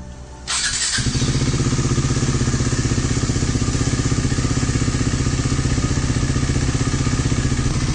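KTM 390 Duke's single-cylinder engine starting on the electric starter about half a second in, catching at once and settling into a steady idle with a fast, even exhaust beat. It is run at idle to push distilled water through the cooling system during a coolant flush.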